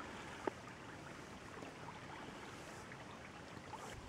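Faint river water moving and trickling along a canoe's hull, with scattered small drips and ticks and one sharper tick about half a second in.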